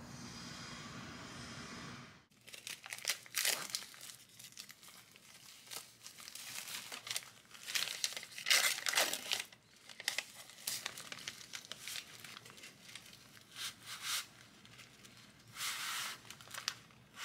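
Plastic wrapping crinkling and tearing as a bundle of dried thin wheat noodles is unwrapped by hand, in irregular rustles and rips. It starts about two seconds in, after a steady low hum.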